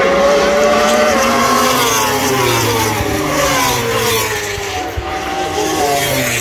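Several racing motorcycle engines running at high revs as the bikes pass, overlapping, their pitch rising and falling.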